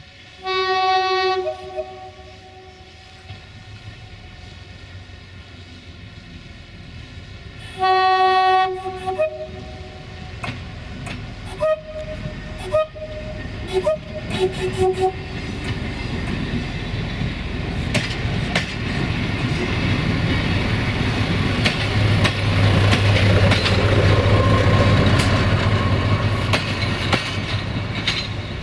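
Caravelle X4500 diesel railcar sounding its two-tone horn, low note then high, about a second in and again about eight seconds in, followed by a few shorter toots. Its engine and running noise then grow louder as it passes close by, with wheel clicks over rail joints.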